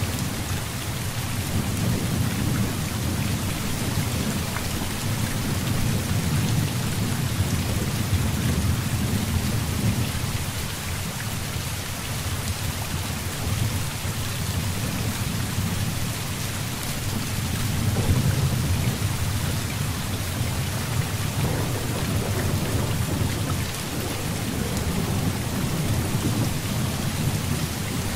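Heavy rain falling steadily, with deep rolling thunder rumbling underneath that swells and fades, growing loudest about two-thirds of the way through.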